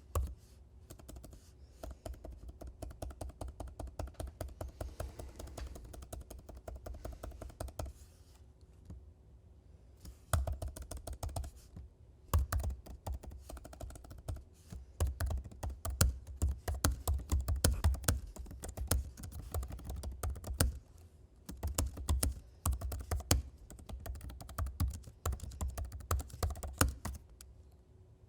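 Typing on a computer keyboard: fast, continuous runs of key clicks. The typing is lighter at first, stops for a couple of seconds about a third of the way in, then resumes louder and heavier with short pauses.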